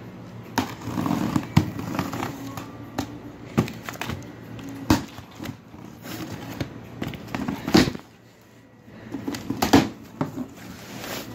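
A cardboard box being cut open along its taped seam with a small blade, then its flaps pulled back: scraping and rustling of cardboard and tape, with several sharp knocks and cracks.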